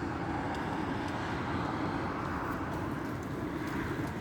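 Strong gusty wind blowing hard, buffeting the microphone in a steady low rumble.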